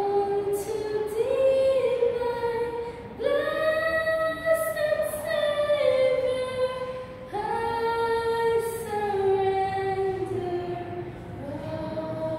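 A girl singing solo and unaccompanied, holding long notes that step from pitch to pitch, with new phrases beginning about three and seven seconds in.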